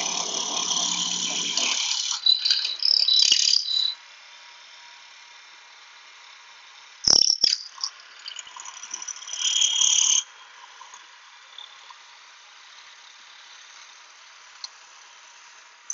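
Shopsmith's motor running with a 1/2-inch hollow chisel and auger bit plunged into wood: loud cutting and chip-clearing in the first four seconds and again briefly near ten seconds, a sharp knock about seven seconds in, and a steady high-pitched whine between the cuts.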